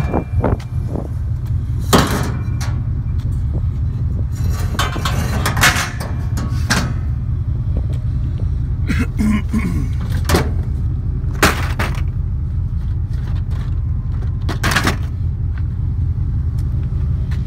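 Steady low rumble of a vehicle engine running, with sharp knocks and clanks now and then.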